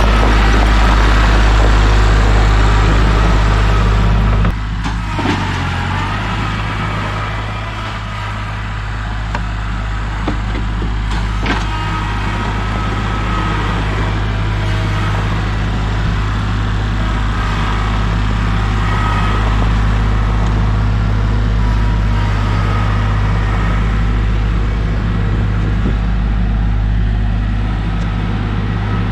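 An engine running steadily with a deep, even hum that dips slightly about four and a half seconds in and then holds.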